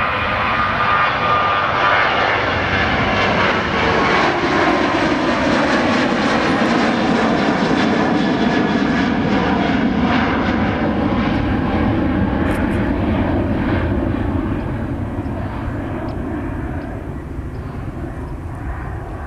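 Boeing 737 jet airliner climbing out at takeoff power, its twin turbofan engines roaring past. The pitch sweeps downward as it passes, and the sound eases off after about 14 s as it flies away.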